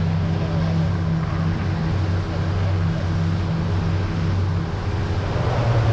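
Boat engine running steadily. Its note rises slightly about five seconds in.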